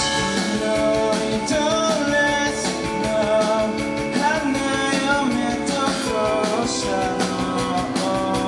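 Live rock band playing: electric guitars and drums, with a singer's voice over them.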